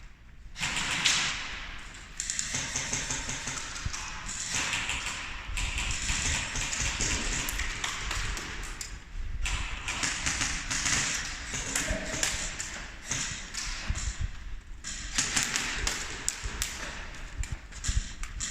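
Sounds of an airsoft close-quarters game: irregular sharp taps and thuds over a continuous rustling noise.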